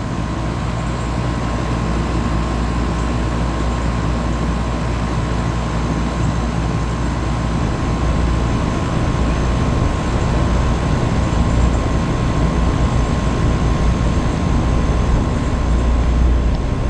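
Steady mechanical running noise: a continuous low rumble with a faint steady hum and a thin, constant whine above it.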